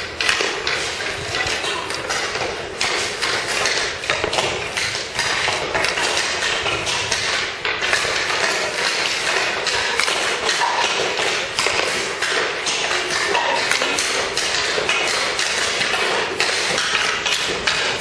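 Ice hockey practice on a rink: a dense, irregular run of sticks and pucks clacking and thudding against each other and the boards, over the steady scrape of skates on ice.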